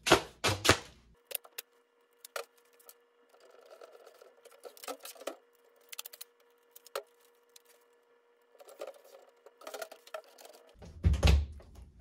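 Tape being pulled off the roll in strips: crackly rips and a scattering of sharp clicks, with softer rasping stretches as tape is pressed down. Near the end, a couple of heavy thumps as the box fan is handled.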